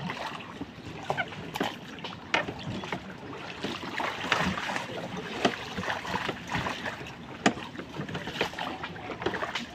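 Oars of a hand-rowed boat dipping and splashing in the water, with a wash of water noise and scattered sharp knocks.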